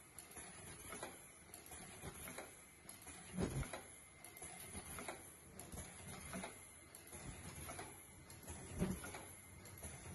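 Automatic surgical-mask earloop welding machine running: pneumatic cylinders and transfer mechanisms clacking and knocking every second or two over a steady machine hum.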